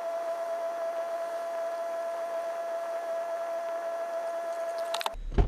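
A steady high-pitched hum over a hiss, which cuts off abruptly about five seconds in, followed by a sharp knock.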